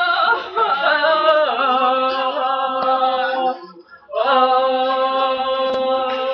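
Two young women singing without accompaniment. They hold a long note for about three and a half seconds, break briefly, then hold another long note.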